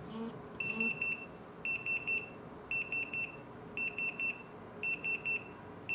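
Retekess TD173 guest pager's alert in beep mode: high-pitched electronic beeps in quick triples, repeating about once a second as the pager is called.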